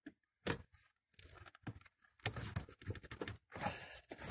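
Hands handling and rubbing against hard plastic interior trim and carpet in a car footwell: a few light clicks, then uneven rustling and scraping that gets busier about halfway through.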